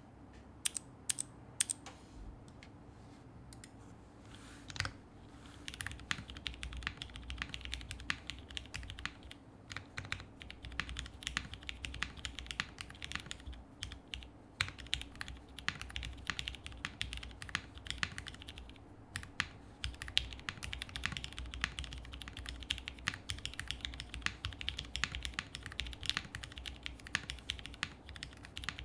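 Typing on a custom Polaris tenkeyless mechanical keyboard with lubed and filmed Cherry HyperGlide Black linear switches on an FR4 half-plate, under CRP keycaps. A few separate keystrokes come first, then steady continuous typing with short pauses.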